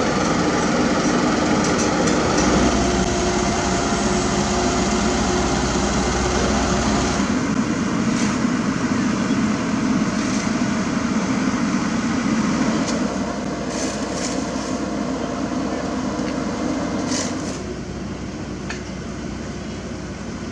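Diesel engines of heavy road-paving machinery running steadily with a droning hum. The drone drops a step in level about a third of the way in and again near the end, and a few faint clicks sound in between.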